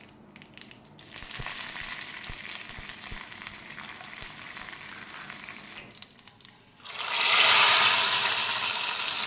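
Curry leaves and dried red chillies sizzling in hot coconut oil for a tempering, a steady hiss that starts about a second in. About seven seconds in comes a much louder sizzle as the hot tempering hits the sambar, easing slightly toward the end.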